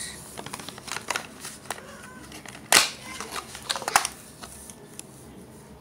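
A small paperboard cosmetics carton being opened and handled: light rustles and taps, a sharp snap near the middle, and a few more clicks about a second later.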